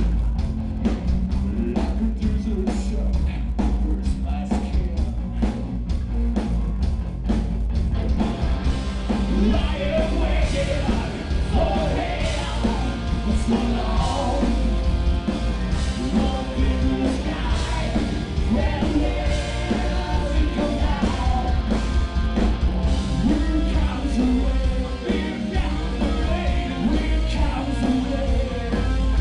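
Rock band playing live, with heavy bass and steady drums; singing comes in about nine seconds in.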